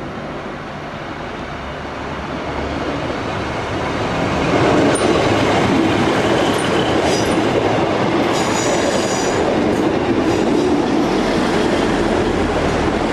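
Class 150 Sprinter diesel multiple unit passing close by, its underfloor engine and wheels on the rails growing louder over the first four seconds as it comes alongside, then running on steadily. Short high-pitched wheel squeals come through in the middle.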